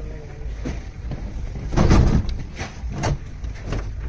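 A few knocks and scrapes from a car engine being handled and shifted by hand in its bay, the loudest knock about two seconds in.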